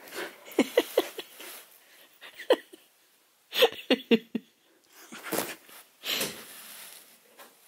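Samoyed puppy making short grunts and breathy huffs in several quick clusters as she bites at the carpet, with a longer breathy puff of air about six seconds in.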